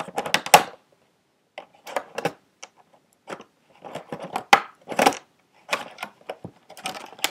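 Airsoft gun packaging being worked at by hand to free a stuck part: irregular clicks, knocks and rustles of cardboard and paper, with short pauses between.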